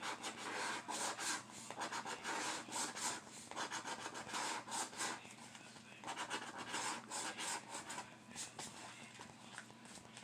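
Scratch-off lottery ticket being scratched, in quick runs of rasping strokes with short pauses between them.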